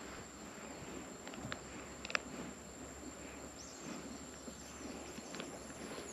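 Quiet outdoor ambience with a steady high-pitched insect drone and a few faint clicks, the sharpest about two seconds in.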